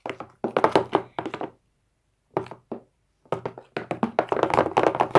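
Rapid clicking and tapping of a utensil stirring slime mixture in a container, in three bursts with short breaks between.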